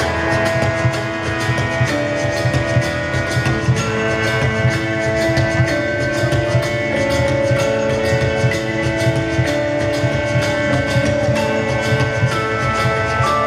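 Rock band playing an instrumental passage of the song live: long held chords and melody notes over steady drumming, with no singing.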